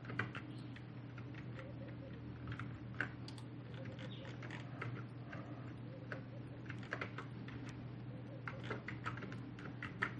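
Computer keyboard keys and mouse buttons clicking irregularly as shortcuts and selections are made, over a faint steady hum.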